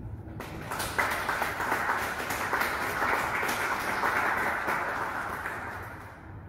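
Audience applauding. It starts about half a second in, swells within a second and dies away near the end.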